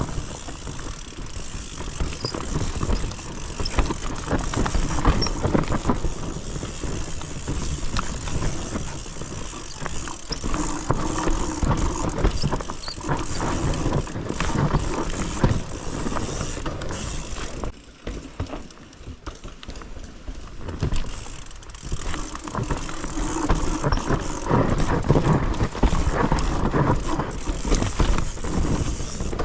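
Mountain bike riding down a rough, steep trail: tyres on dirt and the bike's chain and parts rattling, briefly quieter about two-thirds of the way through.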